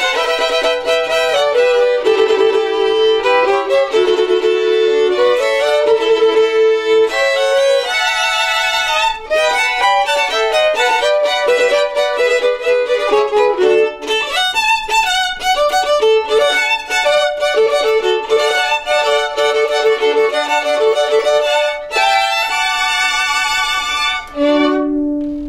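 A trio of violins playing an instrumental piece together in several parts, ending on a single held low note that fades near the end.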